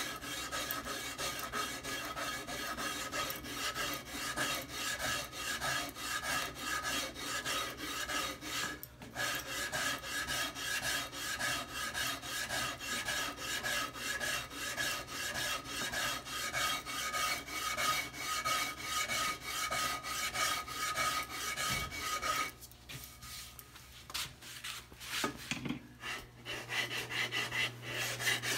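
Sandpaper rubbing back and forth by hand on a basswood half hull model, in quick, even strokes. The strokes stop about 22 seconds in, give way to a few scattered light rubs, and pick up again near the end.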